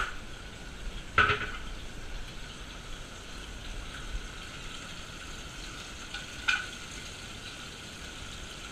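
Chain pickerel fillets frying in a pan with a steady sizzle, broken by a sharp knock of pan or utensil about a second in and another about six and a half seconds in.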